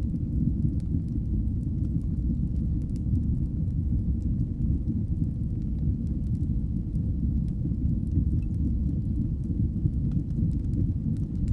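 Wood fire burning in a fireplace: a steady low rumble of the flames with faint, scattered crackles and small pops.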